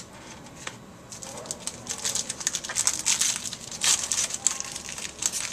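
Wrapper of a pack of Topps Allen & Ginter baseball cards crinkling as the pack is handled and opened. It makes a busy crackle that starts about a second in, after a single sharp click.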